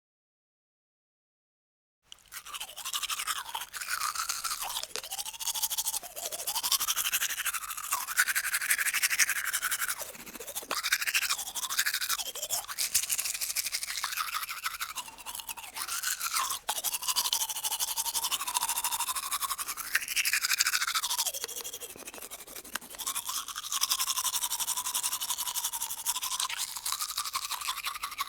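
Teeth being brushed with a toothbrush: bristles scrubbing in the mouth in continuous strokes, the tone shifting as the mouth changes shape. It starts about two seconds in, after silence.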